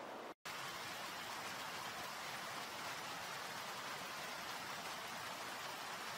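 Steady, even hiss of noise, cut off completely for a split second less than half a second in.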